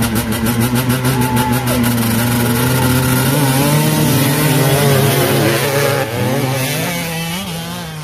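Several motocross dirt bikes revving at the start line, their engine pitch rising as the pack launches off the line. The sound then fades as the bikes pull away.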